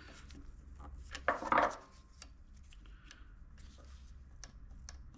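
Small metal parts clicking and scraping as springs and levers are worked into place inside a Bosch VE diesel injection pump housing. There is a louder scrape about a second and a half in, then a few light ticks.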